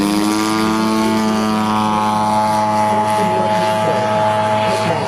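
Gasoline engine of an RC model airplane running with its propeller at high throttle, its pitch settling just after the start and then holding steady.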